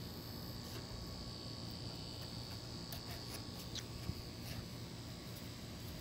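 Insects buzzing in a steady, high, even tone over a low rumble, with a few faint clicks around the middle.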